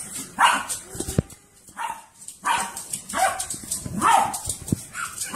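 Small dog barking excitedly in a run of short, sharp barks, about one or two a second, with a couple of dull thumps in between.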